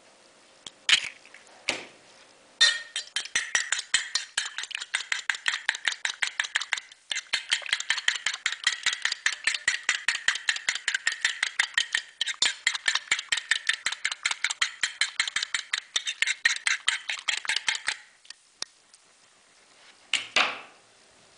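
A fork beating raw egg in a ceramic plate: rapid, steady clicking of metal against the plate, several strokes a second, with two brief pauses. It is preceded by two sharp clicks and stops near the end, followed by one louder knock.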